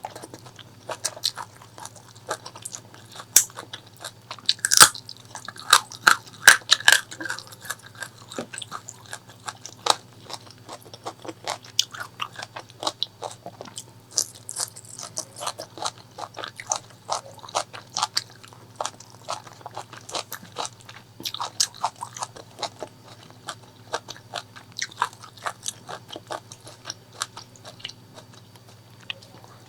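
Close-miked eating sounds: a person biting and chewing pork leg curry with rice, with wet crunches and sharp mouth clicks in a constant run. They are loudest and thickest about five seconds in.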